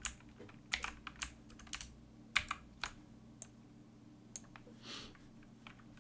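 Irregular, scattered clicks of a computer keyboard and mouse, over a faint steady low hum.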